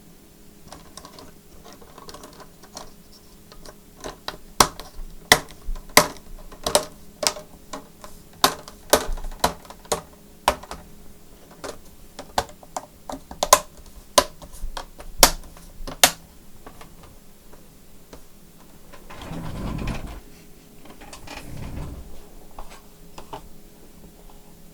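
A run of sharp, irregular plastic clicks from laptop parts being handled, about one to two a second for around twelve seconds, followed by a short low rubbing noise.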